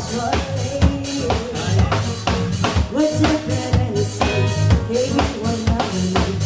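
Dance music with a steady, driving drum-kit beat: bass drum and snare hitting regularly under a pitched melody line.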